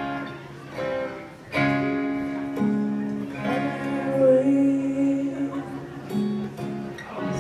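Guitar chords strummed a few times and left to ring, as the guitarist plays through the chord changes of the song, with a voice faintly singing along.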